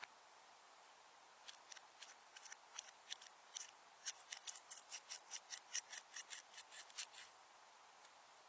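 Slime being squeezed and worked by hand, giving a quick, irregular run of small crisp clicks and pops, a few a second, that starts about a second and a half in and stops near the end.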